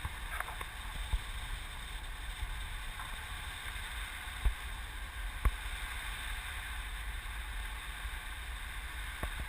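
Steady wind rushing over the microphone in flight on a tandem paraglider, a low rumble with a hiss over it. Two sharp knocks stand out about halfway through.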